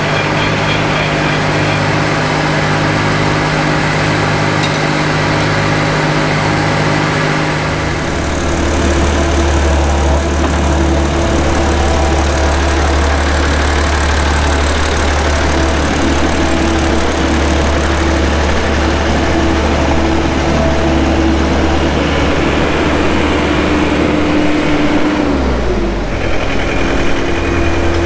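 Tractor engine running steadily at a constant speed. Its note changes about eight seconds in and again near the end.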